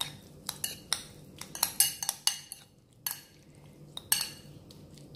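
Metal spoon clinking and scraping against a ceramic bowl in quick, irregular strokes, mixing a wet chopped-tomato salad.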